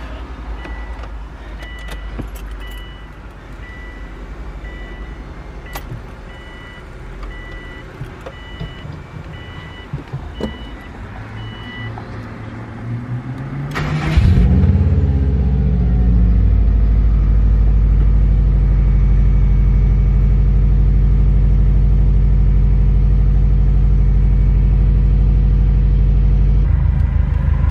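A car's chime beeps steadily in a regular series for about twelve seconds. Then, about fourteen seconds in, the Subaru WRX's turbocharged flat-four engine cranks and starts, and it settles into a steady idle. This is its first start on a freshly flashed tune for an electronic boost control solenoid.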